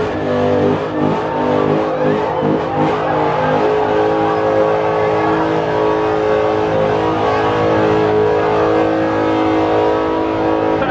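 A car engine revving loudly, then held at steady high revs for several seconds.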